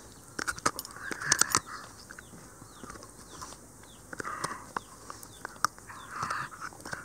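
Shiba Inu gnawing an Ezo sika deer bone, its teeth scraping and cracking on the bone in irregular sharp clicks, the loudest cluster about a second and a half in.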